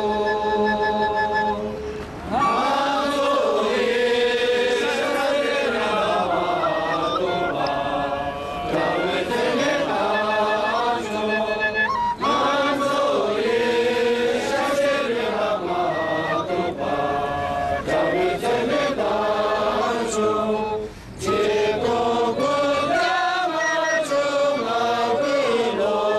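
Voices chanting a melodic chant in long sung phrases, breaking briefly about two, twelve and twenty-one seconds in.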